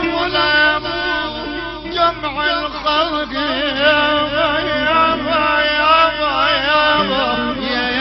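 Middle Eastern music: a wavering, ornamented melody line over steady accompaniment.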